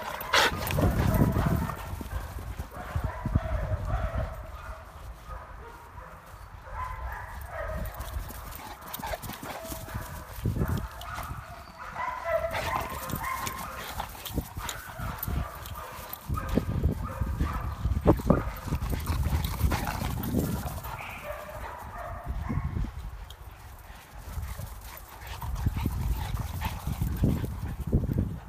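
Dogs barking now and then during rough play, with irregular low thuds and rumbles in between.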